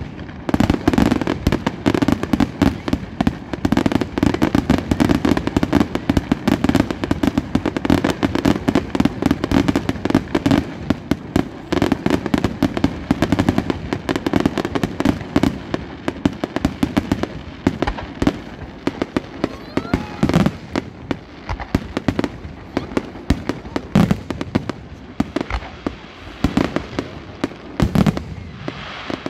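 Fireworks display: a dense, rapid barrage of aerial shell bursts with continuous bangs and crackling, thinning somewhat in the second half to more separate loud bangs.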